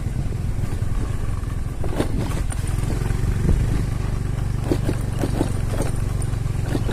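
Motorcycle engine running steadily while riding along a dirt track, with a few short knocks and rattles from the bumps.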